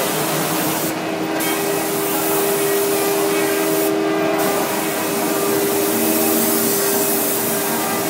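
Automatic CNC spray-coating machine running: a steady hiss from its compressed-air spray gun over a machine hum. The high hiss drops out briefly twice, about a second in and again about four seconds in, as the spray stops for a moment.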